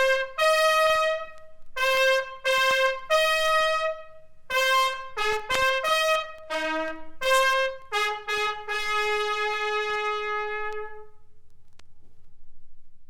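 Japanese military bugle sounding a call of separate short and longer notes. It ends on one long held note that dies away about two seconds before the end, leaving faint record surface noise and a single click.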